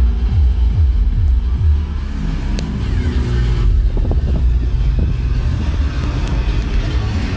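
Very loud deep bass from a competition car stereo's subwoofers playing music: falling bass drops two or three times a second for the first couple of seconds, then a steadier low drone.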